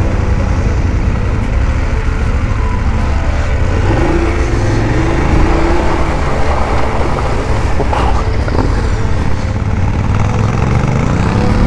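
BMW F850GS Adventure's parallel-twin engine pulling through a shallow ford, with water spray and rushing air over the mounted camera; the revs rise and fall about four seconds in, and a sharp knock sounds near eight seconds.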